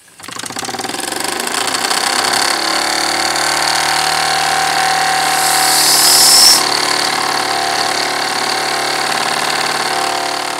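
Wilesco D6 model steam engine's single-acting oscillating cylinder starting up and running fast, a rapid even chuffing clatter that builds over the first couple of seconds. A high, tea-kettle-like steam whistle sounds from about two and a half seconds in, rising in pitch and getting louder, then cuts off suddenly a little past the middle.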